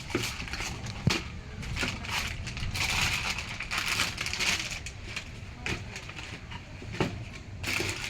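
Packaging being handled during an unboxing: irregular rustling of plastic or cardboard, with a few sharp knocks and clicks.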